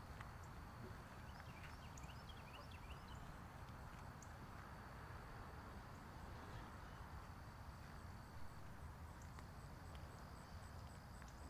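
Near silence: faint field ambience with a low rumble, a steady high insect buzz, and a quick run of short chirps about two seconds in.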